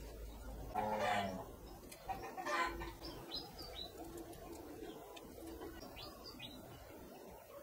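Birds calling in the background: two fuller calls about one and two and a half seconds in, then a scatter of short high chirps.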